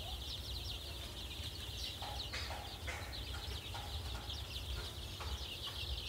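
A large flock of 13-day-old Sonali chicks peeping continuously, many high, short peeps overlapping, over a low steady rumble.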